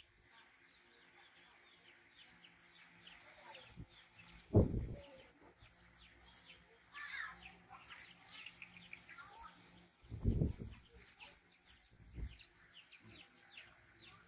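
Small birds chirping steadily in the background, with a louder call about seven seconds in. Two dull low thumps stand out, about four and a half and ten seconds in.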